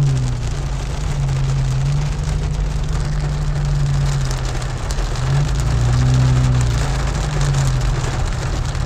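Heavy rain drumming on a car's roof and windshield, heard from inside the moving car, with a steady low hum from the car underneath.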